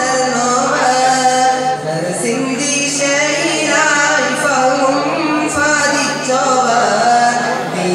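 A young man singing a Malappattu, a Mappila devotional praise song, solo into a microphone, in long, wavering held notes.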